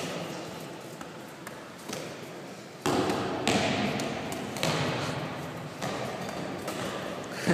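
Several sharp thuds spaced irregularly about a second apart, each ringing on in the echo of a large hall, over a steady room noise.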